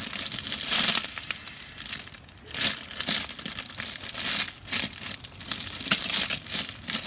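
Plastic squishy packaging crinkling and rustling in irregular bursts as it is handled and pulled at.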